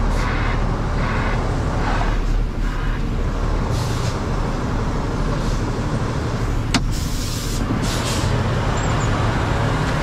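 Concrete mixer truck's diesel engine running with a steady low rumble as the truck reverses, with a few short hisses of air about four seconds in and again around seven to eight seconds, and one sharp click just before the second hiss.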